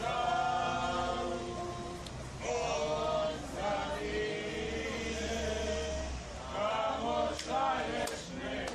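A group of voices chanting a hymn together in held notes, phrase after phrase.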